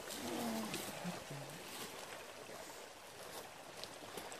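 Christmas tree burning: the fire hisses steadily, with a few sharp crackles. Faint voices are heard in the first second or so.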